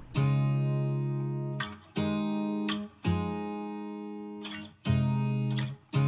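Background music: acoustic guitar strumming slow chords, five in all, each left to ring and fade before the next.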